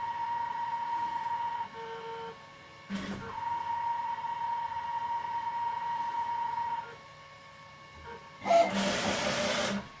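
CNC router axis motors driving the head in jog moves: a steady whine that stops a little under two seconds in, a short lower tone, a click about three seconds in, then the whine again until about seven seconds. Near the end comes a loud burst of rushing noise lasting about a second.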